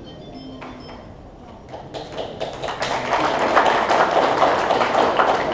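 A room of people clapping, starting about two seconds in and building into steady applause.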